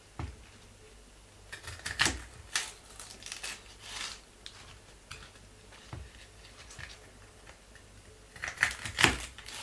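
Kitchen knife cutting through crisp bok choy stalks and striking a wooden cutting board in irregular strokes. There is a quick run of cuts about two seconds in and another near the end.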